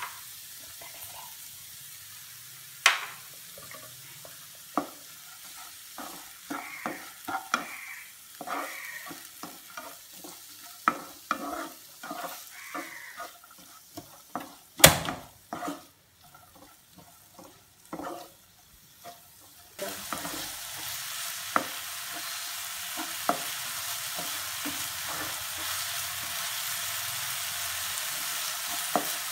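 Chopped onions sizzling in hot oil in a non-stick pan while a plastic spatula scrapes and stirs them in short strokes, as they are sautéed until soft. There is a sharp knock about halfway through, and the sizzle grows louder and steadier in the last third.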